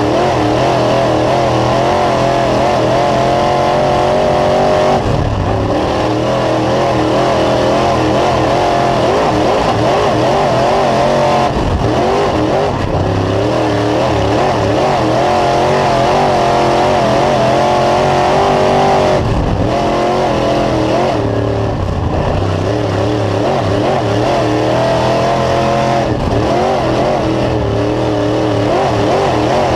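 Dirt late model's Chevrolet 602 crate small-block V8 running hard, heard from inside the cockpit while lapping a dirt oval. The engine note rises and falls throughout, with several brief dips as the throttle comes off.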